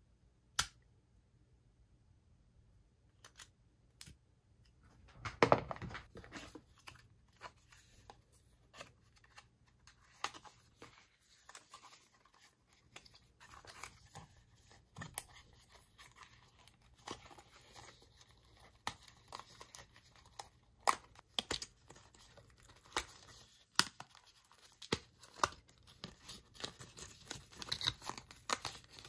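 Paper and cardboard packaging tearing and rustling as a braided charging cable is unwrapped from its cardboard holder, with many small sharp clicks and taps. The loudest rustle comes about five seconds in.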